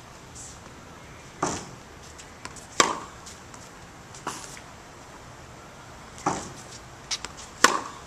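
Tennis ball being struck with rackets and bouncing on a hard court during groundstroke drills: about five sharp pops, mostly in pairs about a second and a half apart, the loudest about three seconds in and near the end.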